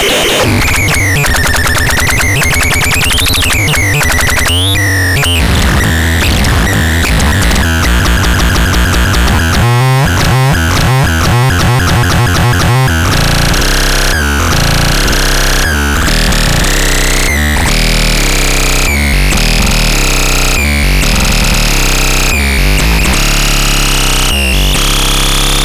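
Harsh, noisy synthesizer sounds with a tone sweeping up and down, a pulsing low bass and a fast flutter in the middle; over the second half a tone rises slowly in pitch.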